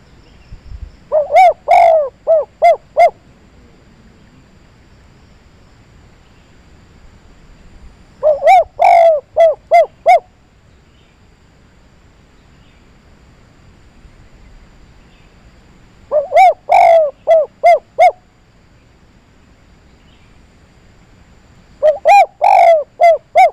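A dove cooing its 'kuk 3' call four times, each phrase a quick run of about six short coos, about seven seconds apart; the last phrase is cut off at the end.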